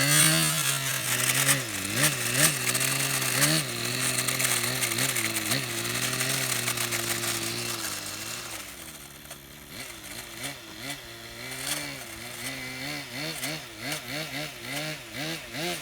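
Motor and drivetrain of a 1/12-scale radio-controlled Blizzard model running, with a whine that rises and falls as the throttle is worked and a rasping grind from the running gear on rough ground. The grind is louder for the first half, then fades, and the whine keeps swooping up and down in short quick blips.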